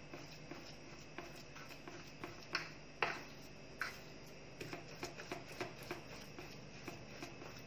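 Metal spoon pressing and scraping soft chenna curds against a ceramic plate, mashing them smooth: a run of light irregular clicks and taps, with a few louder knocks about three seconds in.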